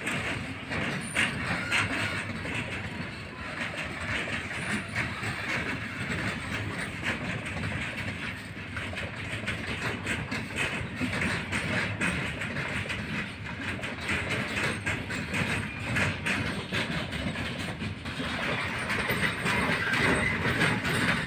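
Freight train of flat wagons rolling past, a steady rumble of steel wheels on the rails with a rapid run of clicks as the wheels pass over rail joints; it grows a little louder near the end.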